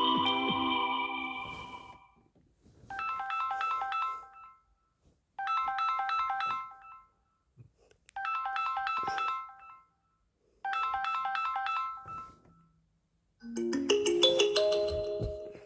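Samsung Galaxy A36 5G ringtones playing. A melodic tone fades out, then a short bright chiming ringtone phrase repeats four times with pauses between. Near the end a different, lower and fuller ringtone melody begins.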